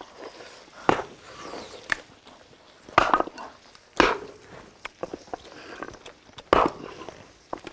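Close-up eating sounds: chewing and slurping, with several sharp clicks of wooden chopsticks against a bowl and a metal tray, spaced about a second apart.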